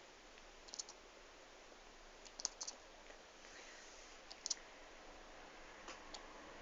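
Faint, sharp clicks in small groups of two or three, repeated a few times: a kitten's teeth chattering, the squirrel-like noise a cat makes when it fixes on something out of reach.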